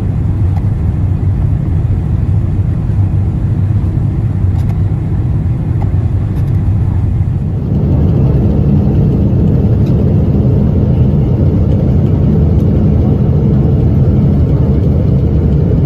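Loud steady low roar of a Boeing 777 in flight, heard from inside the cabin while its right engine is failed and burning. The roar steps up in loudness about halfway through.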